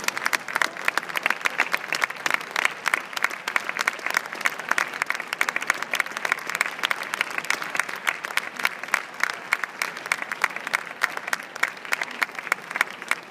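Audience applauding steadily, with a few sharper, louder claps close by.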